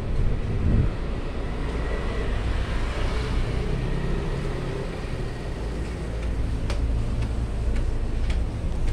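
Street noise with a steady low traffic rumble, and a few light clicks in the last few seconds.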